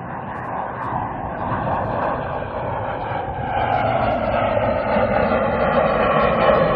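Boeing 747's four turbofan engines at takeoff thrust: a steady jet roar that grows louder as the airliner lifts off and climbs out overhead.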